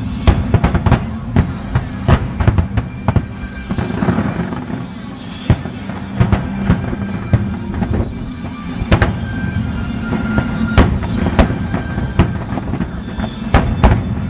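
Aerial fireworks display: shells bursting in a rapid, irregular string of sharp bangs over a continuous low rumble, thinning out briefly about four seconds in before picking up again.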